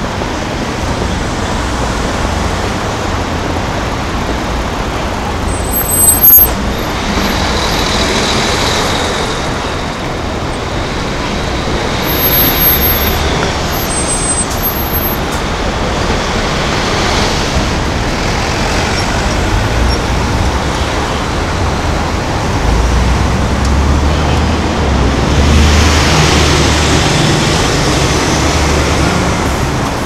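Busy city street traffic: cars, taxis and buses passing, with a sharp knock about six seconds in and a deeper bus engine rumble in the second half.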